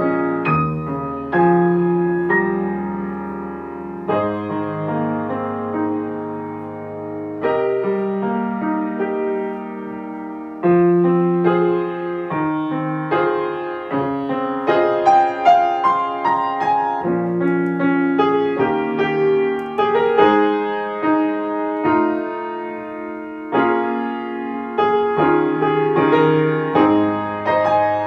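Piano playing the accompaniment of a choral song without the choir: sustained chords under a moving melody and bass line, at a flowing, even pace.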